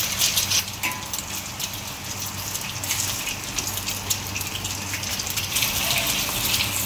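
An egg frying in hot oil in a wok, sizzling with a dense crackle of tiny spattering pops. The sizzle eases a little in the middle and builds again near the end.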